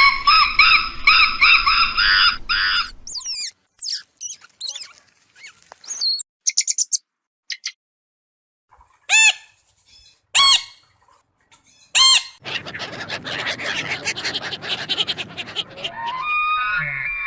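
A run of different animal calls: about three seconds of repeated pitched calls, then high chirps and whistles, three separate loud squawks, and a noisy stretch of calls near the end.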